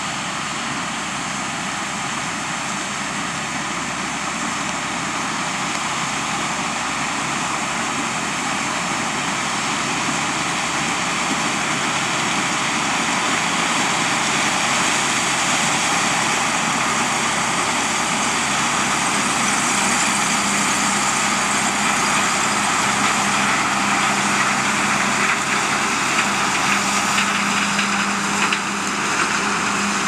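Combine harvester and farm tractor with grain cart running in a corn field, a steady machine noise that grows louder as they come closer. A low steady hum joins about two-thirds of the way through.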